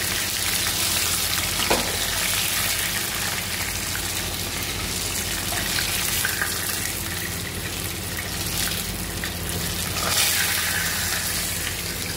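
Chicken pieces deep-frying in hot oil in a pan: a steady sizzle.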